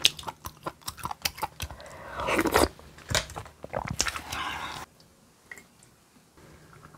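Close-miked eating: crunchy bites and wet chewing of food, which stop about five seconds in.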